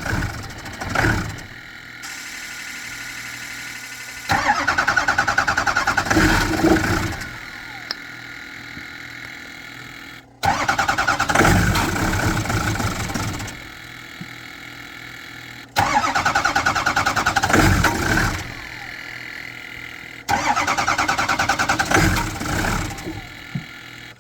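Starter cranking a 2007 6.0-litre engine in four tries of about three seconds each, with the engine never catching: a crank-no-start fault. A steadier, quieter hum runs in the pauses between tries.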